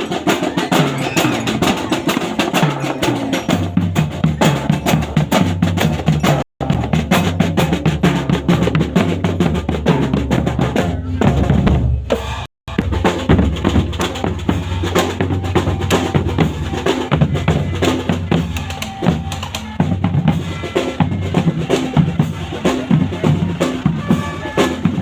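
Loud, drum-driven accompaniment music of a barongan procession, a fast steady beat over sustained low notes. It cuts out completely for a split second twice, about six and twelve seconds in.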